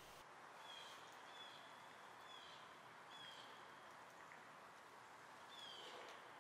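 Faint outdoor ambience under the credits: a bird repeating a short, high, falling chirp about once a second over a soft steady hiss.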